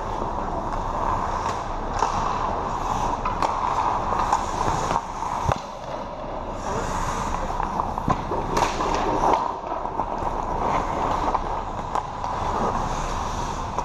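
Ice hockey play: skate blades scraping and carving on the ice, with scattered sharp clicks and clacks of sticks on the puck and ice, over the steady noise of the rink.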